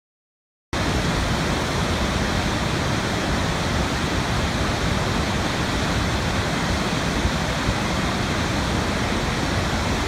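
Steady rushing of a large waterfall, cutting in abruptly about a second in.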